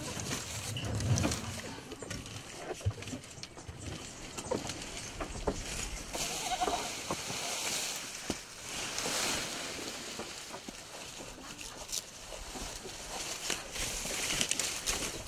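Farmyard ambience with occasional animal calls, a short pitched call about six seconds in, among scattered clicks and rustling.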